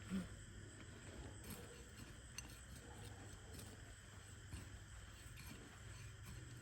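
Near silence: a faint steady low background hum with a few soft ticks, and one brief low tone right at the start.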